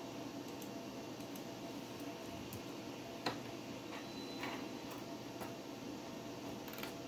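Old desktop PC running, with a steady fan hum and a few sparse, irregular clicks from its hard drive seeking while the operating system installs devices. The sharpest click comes about three seconds in.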